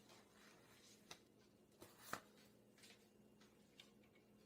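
Near silence with a faint steady hum and a few faint clicks of objects being handled, the loudest about two seconds in.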